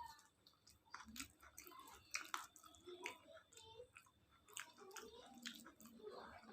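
A person chewing a mouthful of khichuri with fried vegetables, close to the microphone: wet smacking and clicking mouth sounds at irregular intervals.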